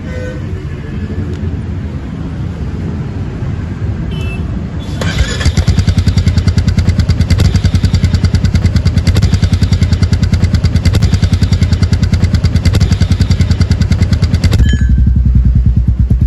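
Royal Enfield Meteor 350's single-cylinder engine running through an aftermarket Red Rooster silencer. It rumbles at first, then about five seconds in it turns much louder with rapid exhaust pulses, and eases back to a lower rumble near the end.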